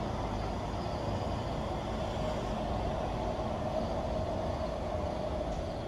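Delivery lorry's engine idling: a steady low rumble with a constant hum above it.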